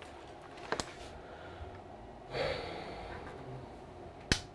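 A person's breath, a short exhale or sigh a little past two seconds in, with a few small clicks; the sharpest click comes just before the end.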